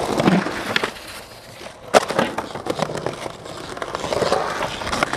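Skateboard wheels rolling on concrete, with a sharp clack of the board about two seconds in and a few lighter knocks after it.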